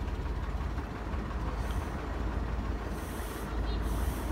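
Steady low rumble and road noise of a slowly moving vehicle, with a few brief hisses in the second half.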